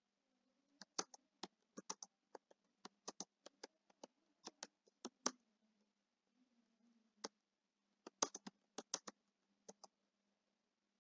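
Quiet computer keyboard typing: a run of quick, irregular keystroke clicks, a pause of about three seconds around the middle, then another short run of keystrokes.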